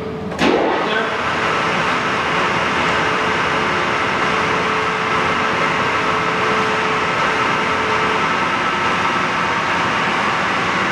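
Bridgeport Romi EZ Path 17 x 44 CNC lathe running with no cut, the spindle turning in air. A sharp knock about half a second in, then a steady mechanical running noise with a faint hum that fades out about eight seconds in.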